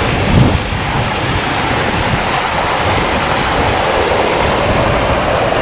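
Creek water rushing steadily, loud and close to the microphone, with a brief low thump about half a second in.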